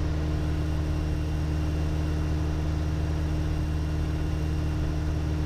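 Piper Warrior's four-cylinder Lycoming engine and propeller droning steadily in cruise, heard inside the cockpit.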